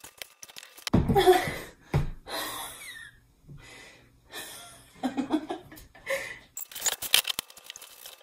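A woman laughing and panting breathlessly, out of breath from the effort of cutting. Near the end comes a rapid run of sharp clicks and crackles as a small box knife cuts through the hard plastic of a storage tote lid.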